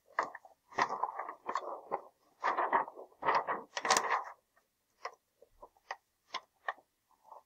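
Pages of a large picture book being turned and handled, a few seconds of paper rustling and flapping, followed by several short light clicks.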